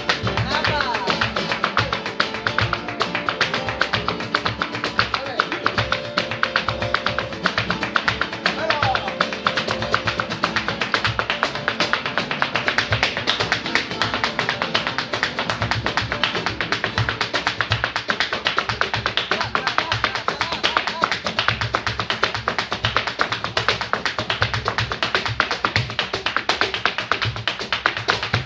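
Live flamenco por soleá on two Spanish guitars with cajón and hand-clapped palmas. Over it, the dancer's zapateado footwork sounds as a dense run of sharp heel-and-toe taps on the wooden stage, busiest in the second half.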